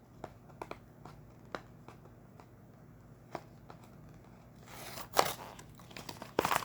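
Small clicks and taps of handling, then crinkling and rustling of plastic packaging at about five seconds in and again near the end, as a Lego set's bags are handled.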